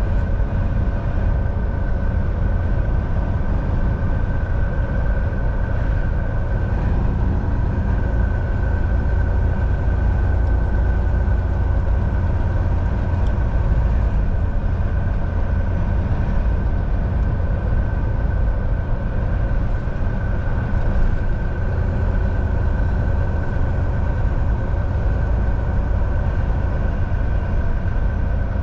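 Semi truck driving at a steady speed: a constant low engine and road rumble with a steady high whine over it.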